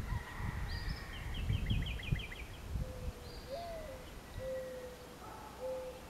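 Mourning dove giving its perch coo: a low first coo that rises and falls, then two steady coos, the two-note ending the local doves use. Before it another small bird sings a quick series of high chips, over a low rumble in the first half.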